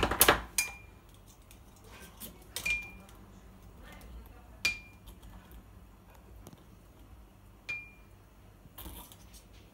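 Sharp metal-on-glass clinks, a handful of them a second or two apart, several ringing briefly, as a knife blade knocks against a champagne bottle's neck while its wire cage is twisted tight over a new stopper. The loudest clinks come at the very start.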